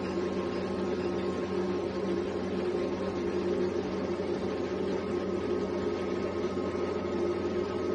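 Cryolipolysis fat-freezing machine running in cooling mode during treatment: a steady hum with several constant tones.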